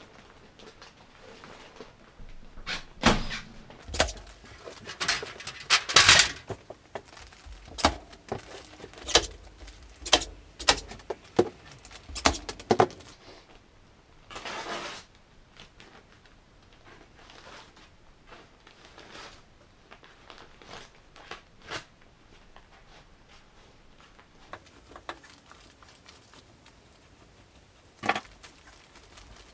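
Irregular sharp clicks and knocks of objects being handled, thickest in the first half, with a short rustling burst about fifteen seconds in and only a few scattered clicks after that.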